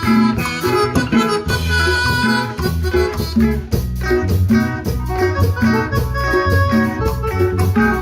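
A Latin dance band playing an upbeat number with a steady, repeating bass beat and melodic instrument lines over it.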